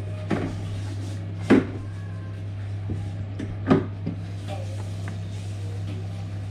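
Tableware knocking as a diner eats: a ceramic bowl and chopsticks clack against each other and the table in four sharp knocks, the loudest about one and a half seconds in. A steady low hum runs underneath.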